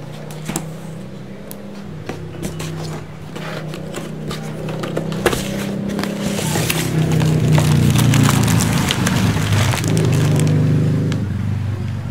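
Cardboard toy box being handled and opened: scattered clicks, knocks and scrapes of the cardboard and packaging, over a low hum that grows louder in the middle and fades near the end.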